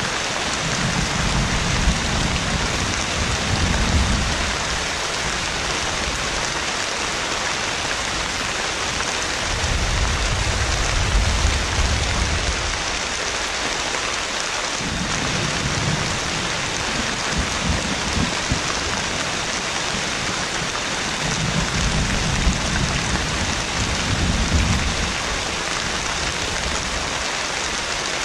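Heavy storm rain falling steadily, with low rolls of thunder rumbling four times, each lasting a few seconds.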